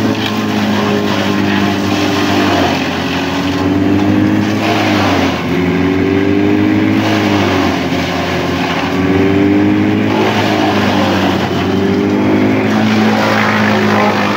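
Bandit 12XPC wood chipper running under load as branches are fed in. Its engine pitch sags several times and recovers, with bursts of noise from the wood being chipped and blown out.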